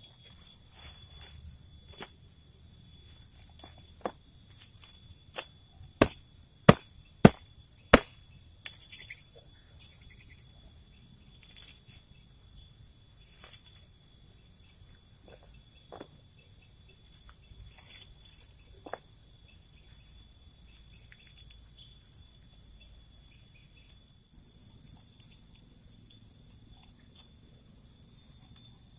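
Steady high-pitched drone of forest insects, with a scatter of small clicks and knocks from camp work. The loudest are four sharp knocks in quick succession about six seconds in.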